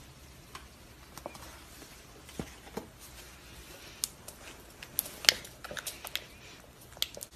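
A clear plastic spoon stirring a small pink mixture in a clear bowl, giving scattered light clicks and taps against the bowl, sparse at first and in a quick run in the second half.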